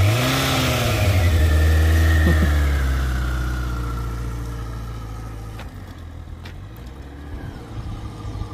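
Honda CBR1000RR Fireblade inline-four sport bike engine revving up as the bike pulls away from a standstill. Its note rises, holds steady for a few seconds, then fades as the bike rides off.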